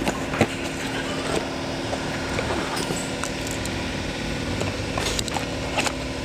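Steady mechanical hum with scattered light clicks and knocks, typical of workshop work.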